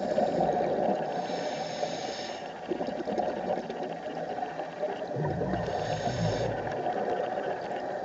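Scuba diver breathing through a regulator underwater: a hissing inhalation about a second in and again around six seconds, with a low burble of exhaled bubbles just after five seconds, over steady underwater noise.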